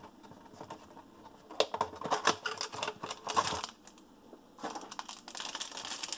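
Trading cards and clear plastic being handled, with no speech. About a second and a half in comes a spell of light clicking and rustling, then a short lull, then denser crinkling of plastic from about four and a half seconds on.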